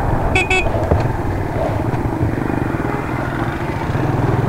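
Suzuki GS150's single-cylinder four-stroke engine running under the rider, with wind noise, easing off in the middle and picking up again near the end. Two quick short beeps sound just after the start.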